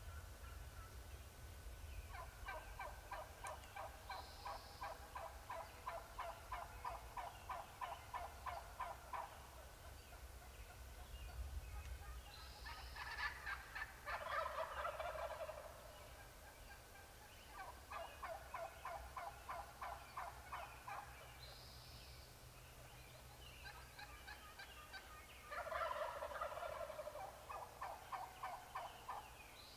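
Wild turkeys gobbling and calling from the roost. Long runs of rapid, evenly spaced notes, with two louder gobbles about 13 and 26 seconds in.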